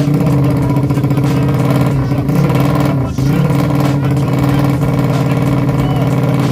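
A 200cc motorcycle engine running at a steady, deep idle through an aftermarket MP2 muffler, with a brief waver in engine speed between two and three seconds in.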